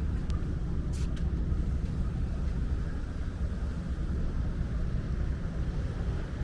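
Steady low outdoor rumble of street ambience, with a brief faint tick about a second in.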